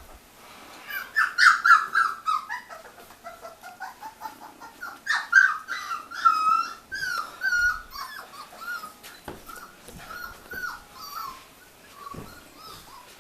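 Miniature Australian Shepherd puppies whimpering and whining in a run of short, high calls, loudest in two spells and fading toward the end.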